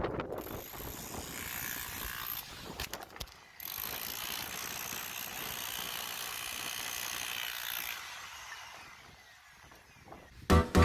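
Angle grinder cutting into render on an outside wall: a steady high-pitched grinding hiss in two runs with a short break between them, the second fading away near the end.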